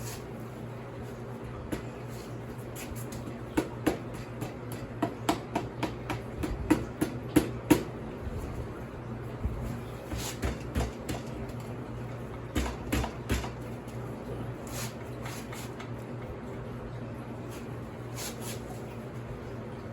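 Hand tools and metal motorcycle parts clinking and knocking in scattered sharp clicks, in clusters with pauses between, over a steady low hum.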